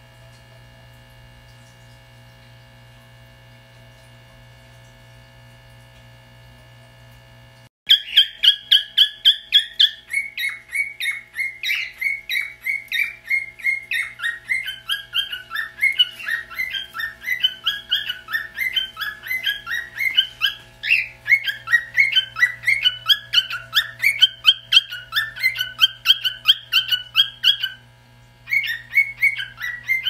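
A steady electrical hum runs alone for the first several seconds. Then, after an abrupt cut, a cockatiel sings a long, fast run of chirped, whistled notes, with a short pause near the end.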